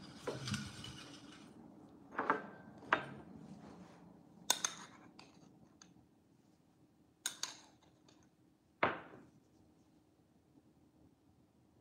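Kitchen handling sounds: a handful of light knocks and clinks, fewer and farther apart toward the end.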